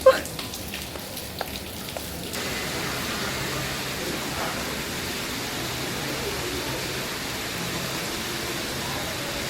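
Steady rain falling, an even hiss that comes in about two seconds in and holds level. It follows a brief, sharp, rising sound right at the start.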